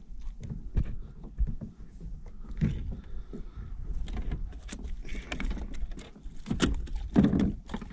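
Scattered knocks, taps and rattles of a snapper being lifted aboard a plastic fishing kayak and unhooked, fishing line and terminal tackle clinking, over a steady low rumble.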